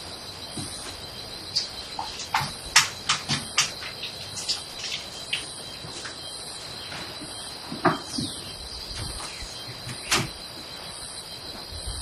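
Crickets chirping at night: a steady high trill with a softer pulsing chirp that repeats all through. A few light clicks and knocks sound over it, the sharpest about three seconds in, near eight seconds and near ten seconds.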